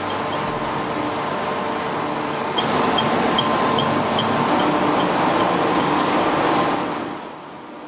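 Straw insulation processing machinery running: the bale-breaking and shredding unit tearing apart and chopping compressed wheat straw, a steady dense mechanical noise with a motor hum and a faint regular high ticking. It grows louder about two and a half seconds in and drops back shortly before the end.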